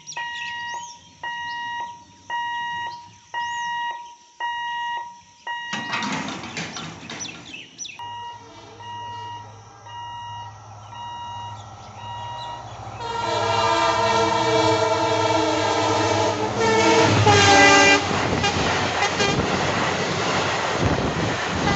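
Electronic warning beeps, about one a second, from a level crossing as its boom barrier lowers. Then a WDP-4 diesel locomotive's horn sounds loudly on approach, loudest about 17 seconds in. After that comes the heavy, steady noise of passenger coaches passing close by.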